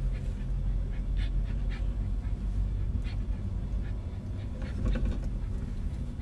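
Car's engine and tyre rumble heard from inside the cabin, a steady low drone, with a few short breathy hisses over it.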